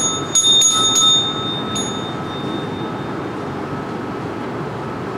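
Small altar bell (sanctus bell) struck several times in quick succession, ringing out clear and dying away by about three seconds in. It marks the consecration and elevation of the chalice.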